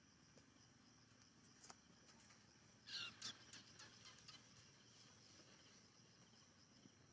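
Faint outdoor ambience: a steady high insect drone, broken about three seconds in by a brief run of high, squeaky chirps.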